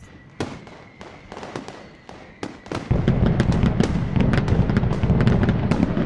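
Fireworks sound effect: scattered sharp cracks at first, then from about three seconds in a dense barrage of crackling bangs over a heavy low rumble.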